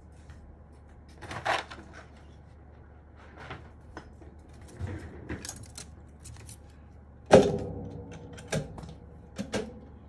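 Hands handling mechanical-keyboard parts: scattered light clicks and rustles, with one sharper knock about seven seconds in that rings briefly.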